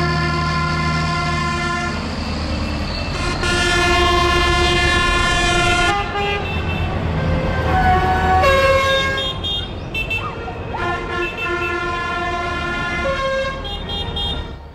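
Decorated tractors and lorries passing with a low engine rumble, while a vehicle horn sounds a string of long held notes at several different pitches, with one falling note about eight seconds in.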